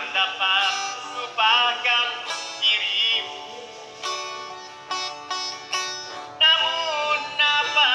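A voice singing with vibrato over a plucked string instrument, its notes struck and fading one after another.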